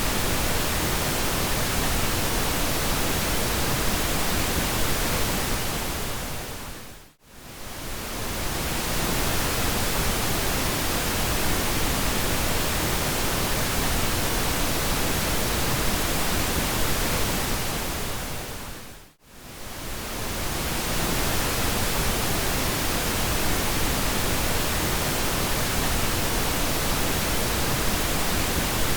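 Pink noise: a steady, even hiss across the whole range from deep rumble to high hiss. It fades down almost to silence and swells back up twice, about a quarter of the way in and again about two-thirds of the way through.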